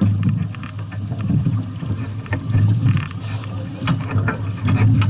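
Sounds aboard a small sailing boat under way: a steady low rumble that swells and fades, with scattered knocks and splashes.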